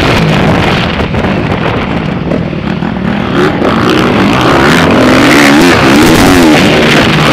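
Motocross bike's engine heard close up from the rider's own bike, revving up and down under throttle. It eases off and goes quieter about a second in, then picks up again from around four seconds with the revs rising and falling.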